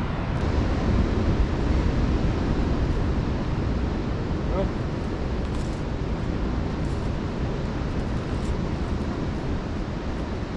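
Steady low rumble of wind on the microphone and heavy ocean surf breaking below the cliff.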